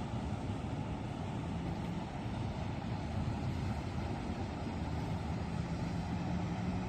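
A steady low engine rumble with a faint hum that comes and goes.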